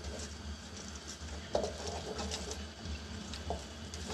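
Whole spices and ginger-garlic paste sizzling in hot oil in a steel pot, with a wooden spoon scraping across the bottom of the pot in irregular strokes as it stirs.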